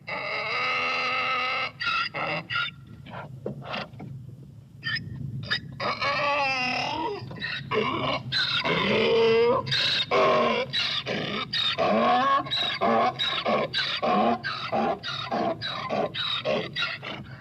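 Donkey braying: a held honking note at the start, then drawn-out brays sliding up and down in pitch, turning into a quick run of short, rhythmic brays.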